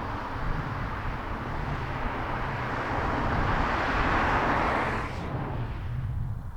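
Outdoor ambience with a low rumble throughout and a hiss that swells over a few seconds, then cuts off suddenly about five seconds in.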